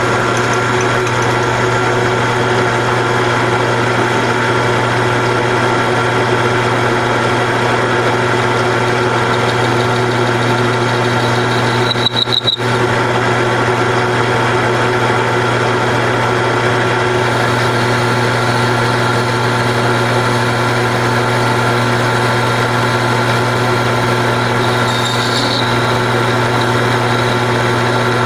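Grizzly G4003G gear-head metal lathe running steadily with a backing plate spinning in it, taking a light finishing cut of about a thousandth off the plate's register. A short high squeak comes about halfway and again near the end.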